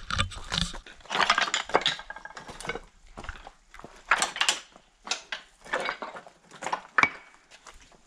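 Footsteps on loose slate rubble, the flat stone pieces knocking and scraping against each other in uneven steps, roughly one or two a second.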